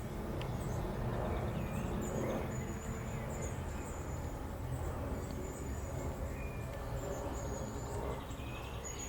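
Small birds calling with high, thin notes that repeat every second or so over a steady low rumble.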